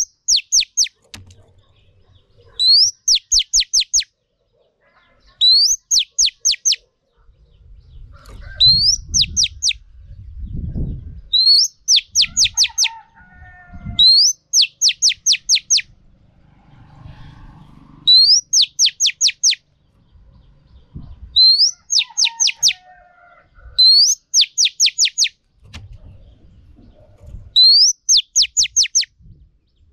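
Female oriental magpie-robin calling: a short rising note followed by a quick run of four or five sharp, high chips, the same phrase repeated about every three seconds. A faint low rumble sounds between the calls partway through.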